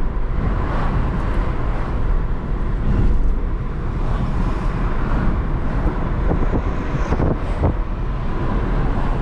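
A moving car's road and engine noise heard from inside the cabin: a steady low rumble with tyre noise, and a few brief knocks about two-thirds of the way through.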